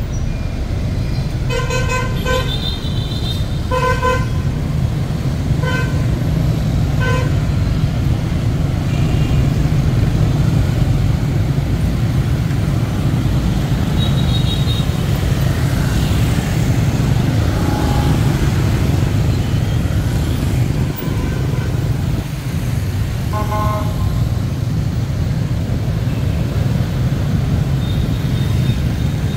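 Steady city road traffic rumble with short vehicle horn beeps: several in the first seven seconds and another about three-quarters of the way through.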